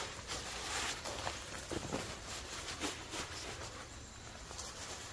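Faint, uneven rustling of a synthetic sleeping bag's polyamide shell as it is pulled open and shaken out, with a few soft taps.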